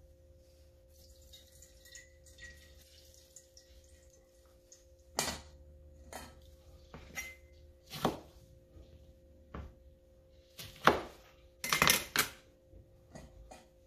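Scattered sharp knocks and clinks of kitchen tools: a cleaver cutting oranges in half on a plastic cutting board and a metal strainer knocking against a stainless steel bowl. About nine knocks, starting about five seconds in and loudest near the end.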